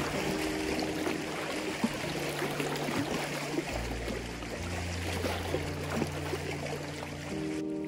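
Small lake waves lapping and splashing against a rock at the water's edge, a continuous irregular wash. Soft background music with low held notes sounds underneath.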